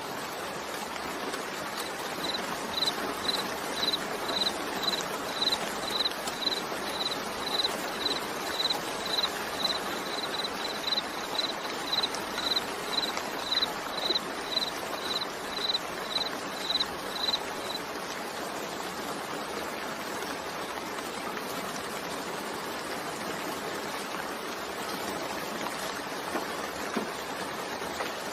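Steady rain falling. For about fifteen seconds a high, short peeping note repeats about twice a second over it, then stops.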